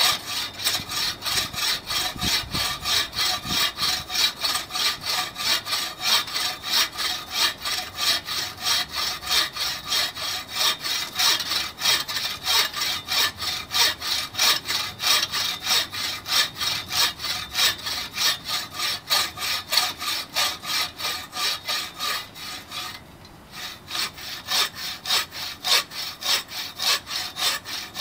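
TrailBlazer 24-inch takedown buck saw cutting through a 10-inch log, in fast, steady push-pull strokes of about three a second. The sawing stops once for about a second before carrying on.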